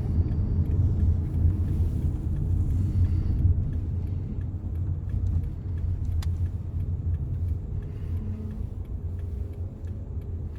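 Low, steady rumble of a car's engine and tyres heard from inside the cabin while driving, slowly easing off in loudness. A single sharp click about six seconds in.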